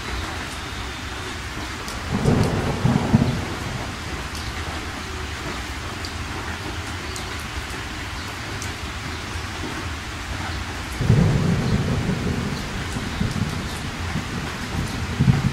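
Steady rain with low rumbles of thunder, one about two seconds in, a longer one about eleven seconds in, and a short one near the end.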